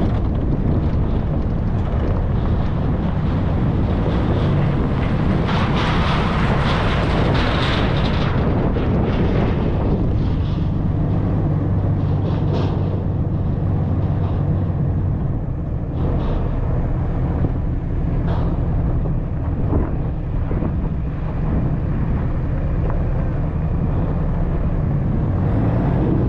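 Dodge Ram 3500 pickup driving on a dirt road, picked up by a camera on the hood: a steady low engine and tyre rumble under wind buffeting the microphone, with scattered clicks and knocks from gravel and bumps. The wind noise swells louder for a few seconds early on.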